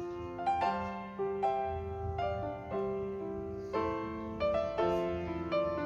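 Background piano music: single notes and chords struck one after another at a gentle pace, each ringing on as it fades.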